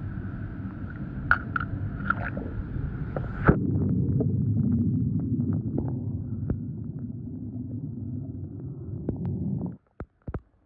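Churning swimming-pool water with a few sharp clicks. After a knock about three and a half seconds in, it turns into a low, muffled underwater rumble, heard with the microphone under the surface. The rumble cuts off suddenly near the end, followed by a couple of clicks.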